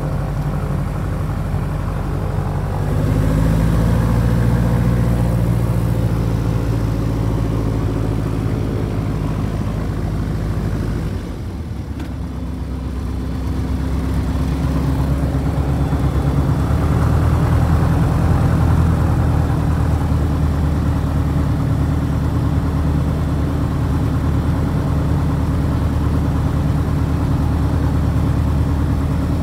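Piper Super Cub's piston engine and propeller running at low ground power, heard from inside the cabin. The engine note rises about three seconds in, drops briefly near the middle, then builds up again and holds steady.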